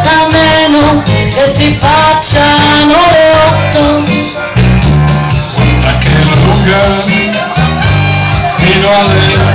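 Loud Latin-style music with a steady bass beat under a melody line that glides between notes.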